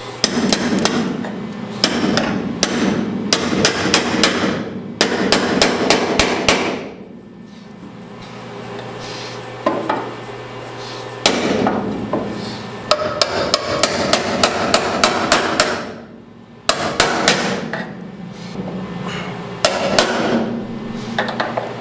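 Hammer striking sheet steel from behind a freshly tacked-in door jamb patch panel, pushing it out to line up with the surrounding metal. Several runs of quick blows, with a pause of a few seconds about a third of the way in.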